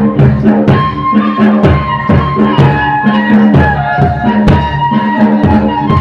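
Loud Rajasthani folk music for a Ghindar dance: a reedy wind instrument plays a held, wavering melody over drum beats about twice a second.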